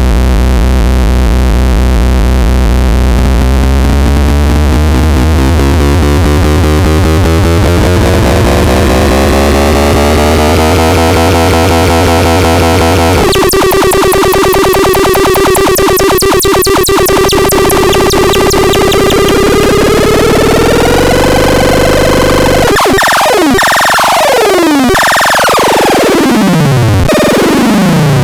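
Loud electronic synthesizer noise. A low buzzing drone has upper tones that slowly rise; about thirteen seconds in it switches abruptly to a steady, rapidly pulsing tone, and near the end comes a run of steep falling pitch sweeps.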